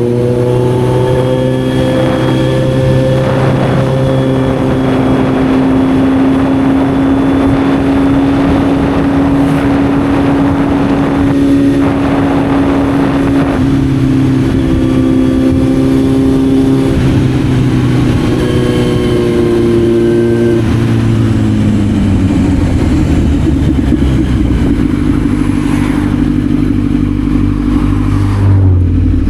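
Kawasaki Z900 inline-four motorcycle engine running under way at steady revs, with wind rushing over the microphone. About two-thirds through, the revs fall away as the bike slows, and the engine settles to a lower steady note.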